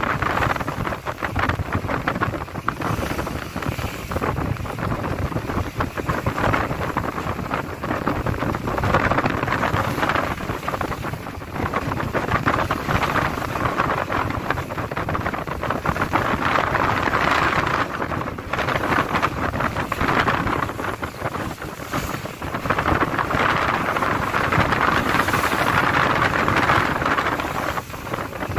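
Strong wind buffeting the microphone over rough sea, with waves rushing and breaking around a boat; the noise swells and eases every few seconds.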